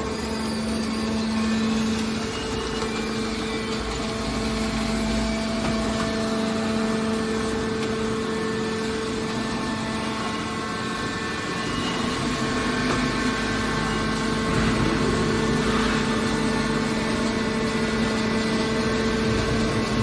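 Hydraulic aluminum-can scrap baler running, a steady hum with a held pitch from its hydraulic pump and motor.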